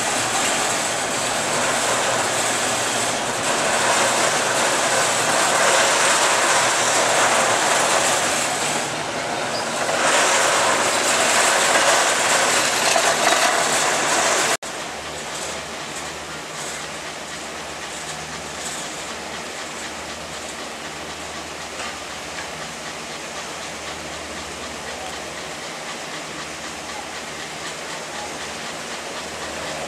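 Poma 8-seat detachable gondola lift running: a steady mechanical rumble and clatter from cabins rolling along the haul rope over the sheaves and through the station. About halfway through it cuts to a quieter, steadier running sound with a low hum.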